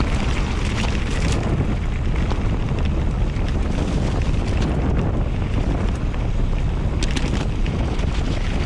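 Wind buffeting the camera microphone of a mountain bike descending fast on a muddy forest track, mixed with the tyres rolling through mud and gravel. A few sharp clicks and rattles from the bike come about seven seconds in.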